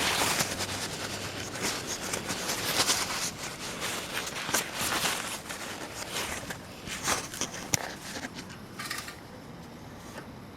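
Irregular handling noises: rustling, scraping and small clicks as the scooter's oil dipstick is worked out and back in to check the oil level. The clicking and rustling die away about nine seconds in.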